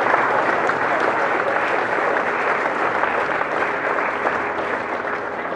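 A large crowd applauding steadily, clapping that eases off slightly toward the end.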